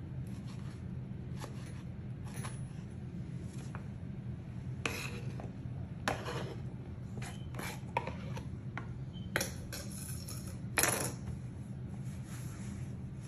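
A plastic cutting board being handled on a granite countertop, giving scattered light knocks and clatters, loudest near the end, over a steady low hum.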